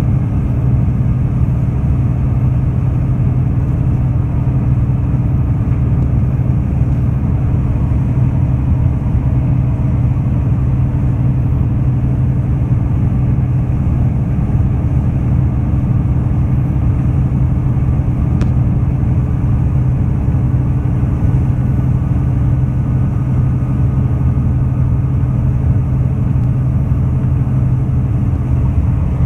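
Combine harvester running at a steady working load, a continuous low drone heard from inside its cab while it unloads grain through its auger on the go.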